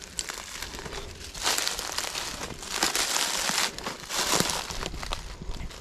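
Footsteps crunching and rustling through dry leaf litter in several bursts, the loudest about one and a half, three and four and a half seconds in.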